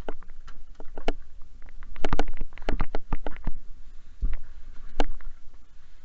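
Irregular knocks, clicks and rustling of someone climbing up into a tractor cab and settling into the seat, thinning out near the end.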